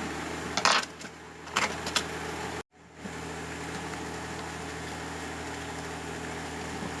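A few light clicks and taps from handling small headset parts in the first two seconds, over a steady low background hum. The hum drops out abruptly near the middle and then carries on unchanged.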